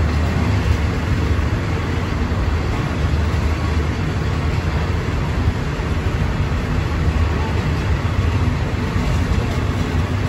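Passenger train pulling slowly out of a station, heard from a carriage window: a steady low rumble of the moving train.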